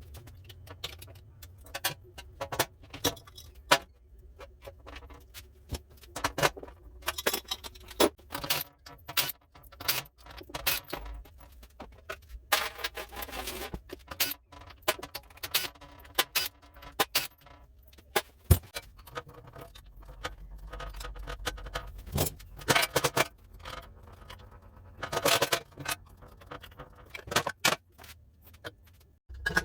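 Metal hand tools and motorcycle parts clinking and clanking irregularly in a workshop, with a few sharper knocks and brief metallic ringing.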